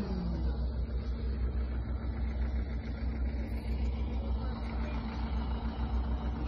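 Motor vehicle engines idling, a low steady rumble with a faint steady hum over it. A louder hum falls away just as it begins.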